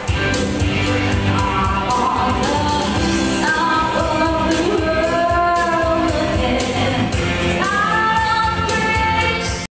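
Woman singing live into a microphone through PA speakers, holding long notes with vibrato over accompaniment with a steady beat.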